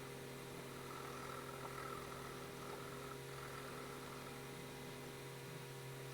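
Pencil colouring on paper, a faint, even scratching under a constant electrical hum and hiss.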